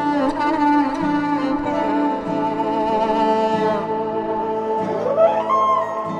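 Background music led by bowed strings, with sustained notes and sliding melodic lines.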